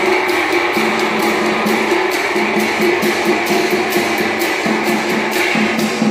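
Chinese hand gongs and hand cymbals played together as a marching percussion band: a fast, even beat of cymbal clashes over the steady ringing of the gongs.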